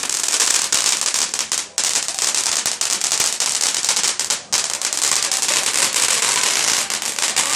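Fireworks crackling: a loud, rapid, continuous string of sharp pops and crackles, broken by two brief gaps about two and four and a half seconds in.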